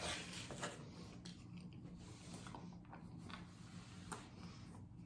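A man chewing a large bite of pizza with his mouth closed: faint, irregular wet chewing sounds over a low steady hum.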